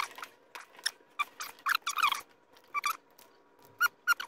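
A string of short, irregular squeaks and snips from the insulated wires of a rubber-jacketed power cord being worked with a hand wire stripper. The loudest squeak comes right at the start.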